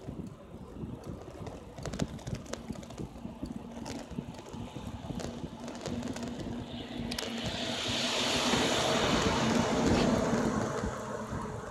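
A box truck overtaking close by: its engine and tyre noise swell from about six seconds in, are loudest as it draws alongside, and ease off near the end. Under it, wind noise and small knocks and rattles from the moving bicycle.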